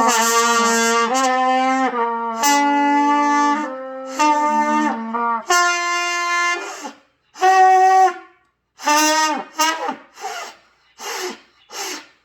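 Trumpet held on long sustained notes that step upward in pitch, then a run of shorter, separate notes with small gaps in the last few seconds.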